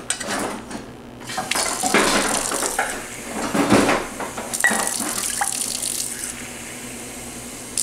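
Kitchen tap running water into a half-cup measuring cup, with a few knocks of the cup. The flow starts about a second and a half in and stops about six seconds in.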